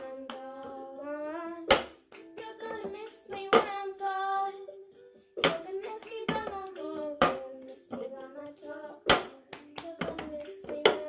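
A girl singing a melody while beating out a cup-game rhythm: hand claps and an upturned tumbler knocked on a tabletop, in sharp strikes every second or so under her voice.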